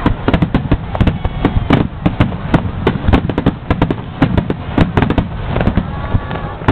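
Fireworks finale: a rapid, unbroken barrage of shell bursts, several sharp bangs a second.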